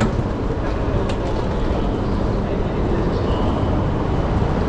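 Steady low rumble of a Shinkansen train running, heard from on board, with a couple of sharp clicks about a second in.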